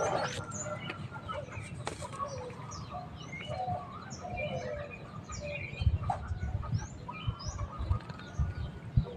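Birds chirping, many short high calls overlapping, with a few low thumps in the second half.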